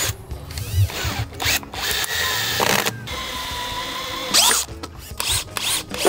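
Cordless drill driving screws into wood. The motor whines up and down in short runs, then runs steadily for about two seconds, followed by a few more short runs near the end.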